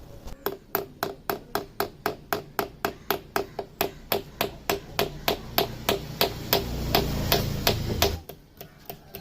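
A hammer driving a small nail into wood with quick, even blows, about four a second, stopping about a second before the end. The nail is being hammered fully home.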